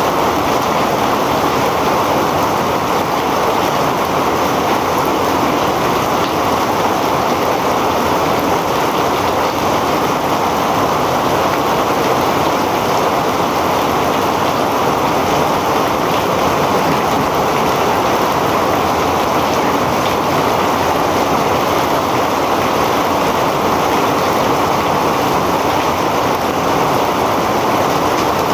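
Heavy rain pouring steadily: a loud, even hiss with no breaks or separate drops standing out.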